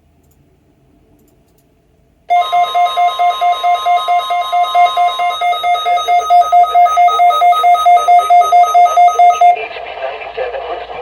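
Weather radio receiver's alert alarm beeping rapidly, about five beeps a second, starting about two seconds in. For the first few seconds the steady 1050 Hz NOAA Weather Radio warning tone sounds under it. Near the end the beeping stops and the radio's broadcast audio takes over; the alarm was set off by the weekly test of the warning alarm.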